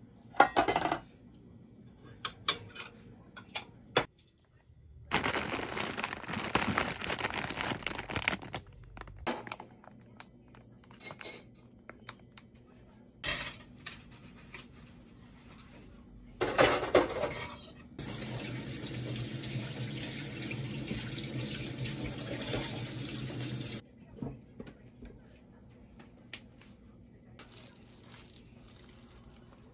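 Kitchen cooking sounds: water running into a saucepan, short clinks and knocks of cookware and utensils, and a stretch of steady hiss for several seconds partway through.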